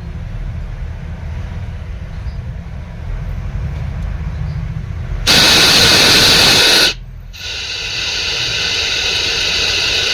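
Small test speaker driven by a freshly fitted LA4440 amplifier IC, giving out a low hum, then a loud burst of FM radio static hiss about five seconds in that cuts out briefly and returns a little quieter. The static shows the repaired channel of the amplifier is now passing sound.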